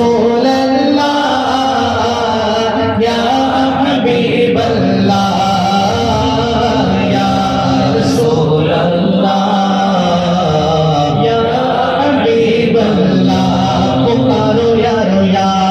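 A man singing a devotional song solo through a microphone and PA, holding long melismatic notes that slowly rise and fall.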